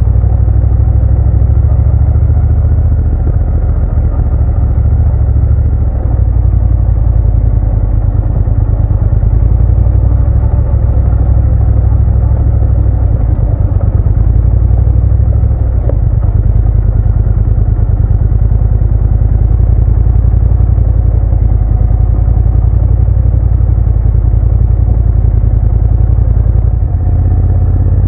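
Motorcycle riding along at a steady pace, heard from the bike: a loud, heavy low rumble of engine and ride noise that holds steady throughout.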